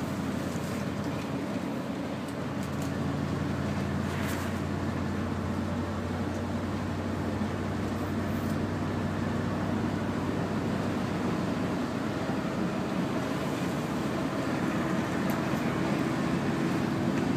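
Mercedes V8 diesel engine of a Neoplan N116 Cityliner coach droning steadily under way, heard inside the cabin over tyre and road noise, growing slightly louder toward the end.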